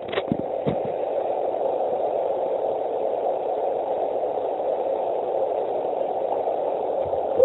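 Steady static hiss, strongest in the middle range, with a faint steady tone underneath and a few short clicks in the first second.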